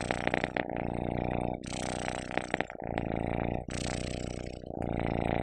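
A cat purring loudly and close to the microphone. The rumble comes in alternating stretches of a second or two with each breath in and out, under a hand stroking its head and chin.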